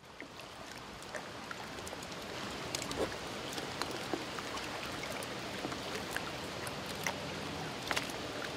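River water lapping at the shore and the moored boats: a steady wash with many small splashes and slaps, fading in over the first couple of seconds.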